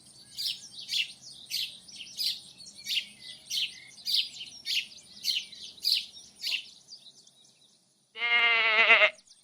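A bird chirping a short high call over and over, about two a second, for roughly six seconds. Near the end, after a brief silence, a loud, wavering livestock bleat takes over.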